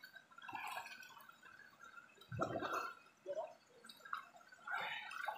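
Water sloshing and splashing in irregular bursts as people wade and swim in a shallow stream.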